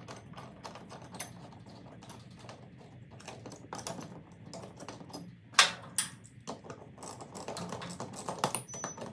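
Metal wrench clicking and clinking in quick, irregular strokes as the bolts of a garage door opener rail's wall bracket are tightened, with one sharp, louder click about halfway through.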